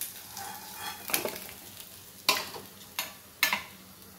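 Hot oil sizzling in a wok as the fried fish are lifted out with a spatula. There are four sharp clacks of the spatula against the wok, the last three close together in the second half.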